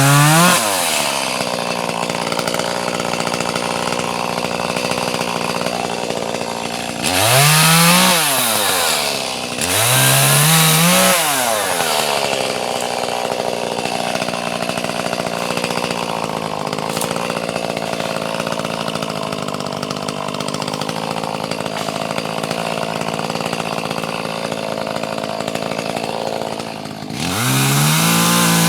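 Two-stroke chainsaw idling steadily, revved up and back down twice in quick succession near the middle and once more near the end.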